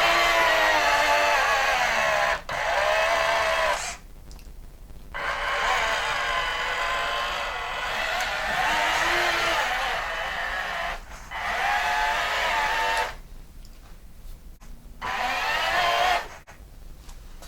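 Small electric motors of radio-controlled construction models whining in bursts, the pitch wavering up and down with the load. There are short pauses about four seconds in and again near the end, where the motors stop.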